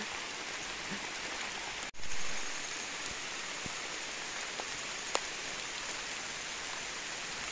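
Steady patter of rain and drips falling on the leaves and leaf litter of a wet forest. There is a brief dropout and a short louder rush about two seconds in, and a single sharp tick about five seconds in.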